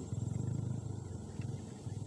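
A steady low rumble made of fast, even pulses, like an engine running, dipping briefly about one and a half seconds in.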